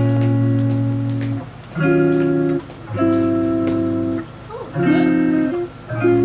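Background music of held instrumental chords, each lasting about a second with short gaps between them.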